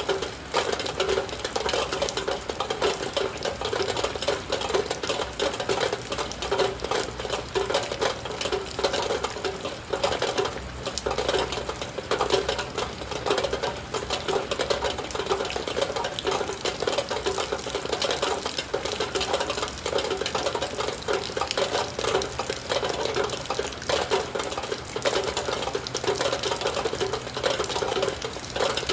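Heavy rain beating steadily on a window, a dense, fast, unbroken run of drop hits.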